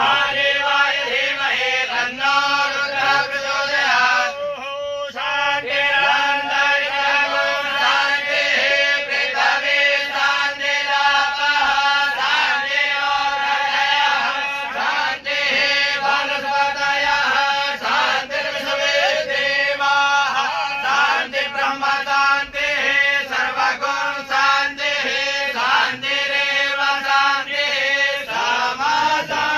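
Male voices chanting Hindu mantras in a steady, continuous flow over a held drone tone.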